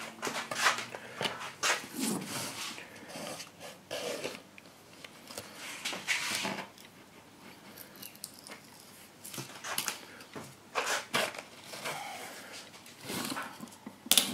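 Wooden lolly sticks being worked into the seam of a DIY Corian mould to pry its two halves apart: irregular scrapes, creaks and small knocks of wood against the hard mould, with hands shifting on the bench.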